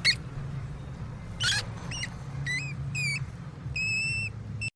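Mouse squeaking: a series of short, high squeaks and one longer, held squeak near the end, over a steady low hum. The sound cuts off suddenly just before the end.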